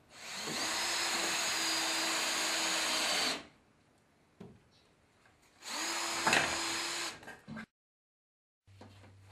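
An electric tool motor spins up and runs steadily with a whine for about three seconds, then stops. It runs again for about a second and a half a few seconds later. Faint clicks follow near the end.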